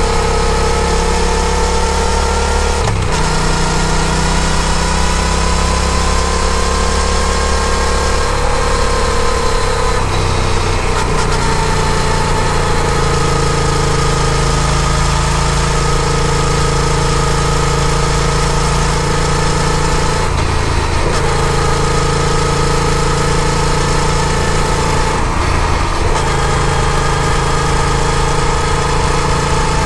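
Yamaha FZ-07's 689 cc parallel-twin engine running while the motorcycle is ridden. Its pitch rises and falls gently, with a few brief breaks where it steps to a new pitch, over a steady hiss.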